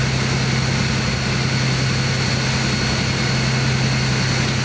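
A push boat's diesel engine running steadily: a constant low drone under an even hiss.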